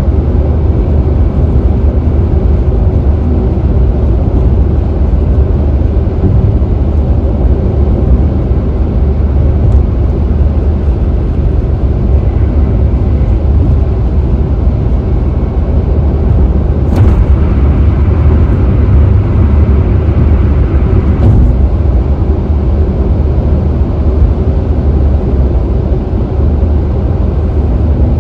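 Steady low rumble of tyres and road noise from a car driving at freeway speed. For about four seconds past the middle a brighter hiss joins in, then stops sharply.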